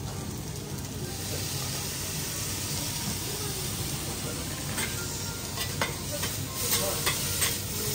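Food sizzling on a flat steel teppan griddle, a steady hiss. From about five seconds in, metal spatulas clink and scrape against the griddle several times.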